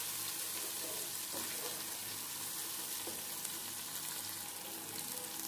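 Chopped onion and tomato with ginger-garlic paste sizzling steadily in hot oil in a non-stick wok, stirred with a wooden spatula that gives a few faint ticks against the pan: the tomato being sautéed into the masala.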